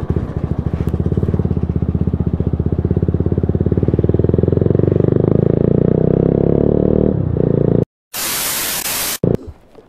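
TVS Apache RTR 200 single-cylinder engine running through an aftermarket Akrapovic exhaust, very loud, its pitch climbing slowly as the bike pulls along. The engine sound cuts off suddenly about eight seconds in, followed by a burst of loud hiss about a second long.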